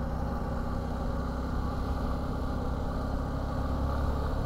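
Suzuki V-Strom 250 motorcycle engine running steadily, its pitch holding even.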